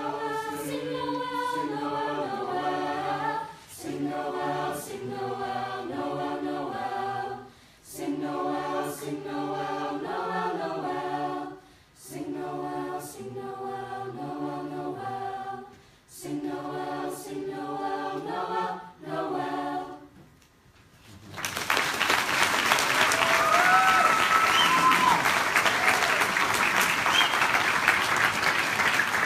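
A school choir singing in short phrases, the song ending about twenty seconds in; an audience then breaks into louder applause.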